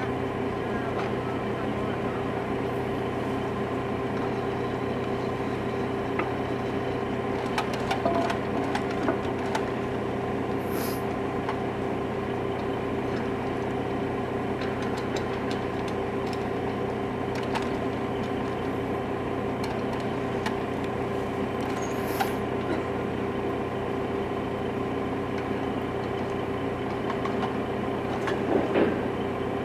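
Rail motor car's engine running steadily with a constant drone, while its crane unloads. A few metallic clanks and knocks are scattered through it, the loudest cluster near the end.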